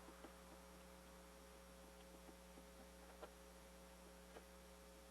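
Near silence: a steady faint hum with a few faint clicks.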